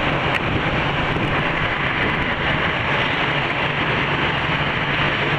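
Steady rushing roar of a twin-engine widebody jet airliner on final approach, with a low hum beneath it.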